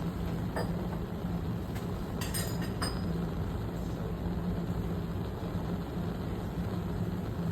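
Steady low hum and rush of laboratory background noise, with a few faint light clinks between two and three seconds in.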